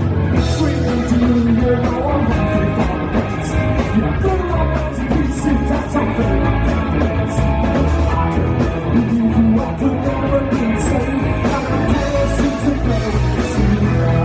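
Rock band playing a song live, with singing over a steady beat.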